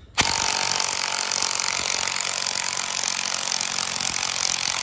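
Bauer 20V cordless impact wrench hammering steadily on a strut's top nut, spinning it off to take the strut apart. It starts about a fifth of a second in.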